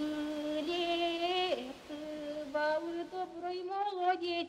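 A woman's voice singing unaccompanied: a slow, drawn-out melody of long held notes, with a falling glide at the end of a phrase, in the chanted manner of a northern Russian bylina.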